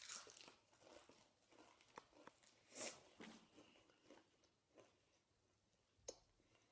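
Faint crunching of a Doritos tortilla chip being bitten and chewed: a few scattered crunches and clicks with near silence between them.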